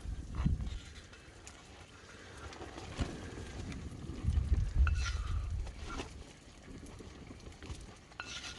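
Cooking in a pan over a campfire: a utensil clicking and scraping against the pan, with a low sizzle.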